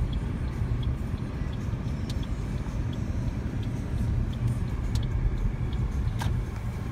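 Car cabin noise at low speed: a steady low rumble of engine and tyres, with faint regular ticking and a single sharp click about six seconds in.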